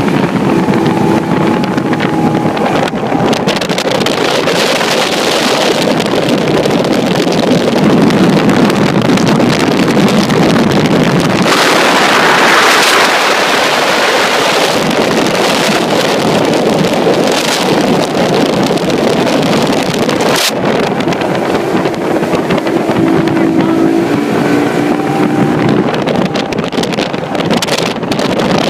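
Speedboat running flat out at over 90 mph. Heavy wind rush on the microphone and water noise mostly cover the engine, whose steady tone comes through near the start and again near the end. A gust swells about twelve seconds in, and there is one sharp crack around twenty seconds in.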